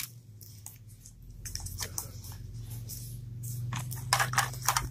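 Crinkling and crackling of a small plastic-and-paper wrapper being pulled open by hand from a Mini Brands toy capsule, starting about a second and a half in as scattered short crackles that grow busier toward the end.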